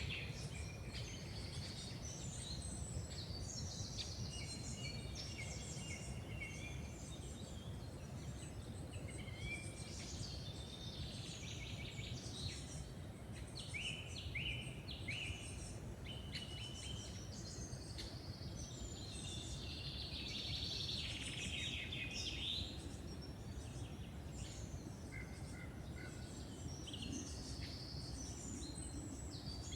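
Several songbirds singing and calling in woodland, a continual mix of short chirps, trills and warbled phrases, over a steady low rumble of background noise.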